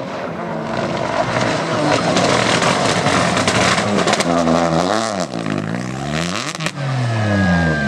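Peugeot 208 Rally4 rally car with a turbocharged three-cylinder engine, passing at speed on a loose gravel stage. The revs climb and fall back twice, with a burst of sharp cracks about six and a half seconds in.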